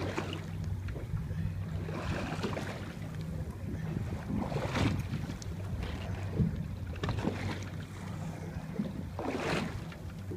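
A boat's motor hums steadily at idle under wind and water noise, with louder rushes of wind or waves a few times.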